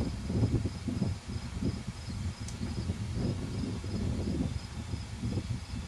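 Outdoor ambience: an uneven low rumble, with an insect chirping steadily in the background about three times a second.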